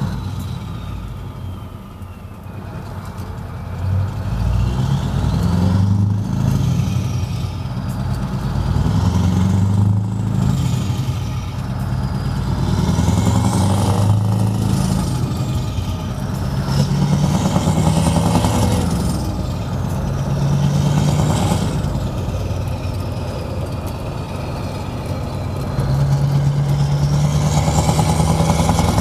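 Scania 164L 580 V8 truck engine with an open exhaust pulling through the gears. Its deep note climbs in pitch about six times and drops back in between as the gears change, with a high whine rising and falling along with each pull.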